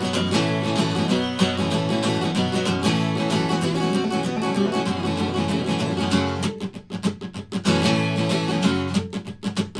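Solo acoustic guitar playing a busy instrumental break, quick picked notes with no singing. About six and a half seconds in, the playing thins to a few sharp separate notes, then fills out again.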